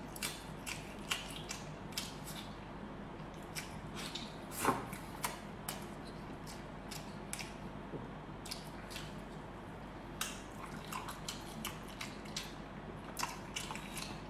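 Close-miked eating sounds: irregular wet mouth clicks and chewing, with one louder smack or slurp about five seconds in.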